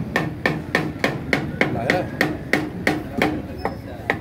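Rapid, evenly paced metal strikes, about three a second, each with a short ring, with one brief pause near the end.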